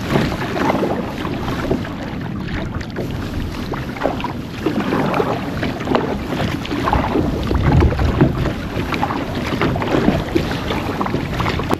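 Strong wind buffeting the microphone while a double-bladed kayak paddle strokes through choppy water, with irregular splashes.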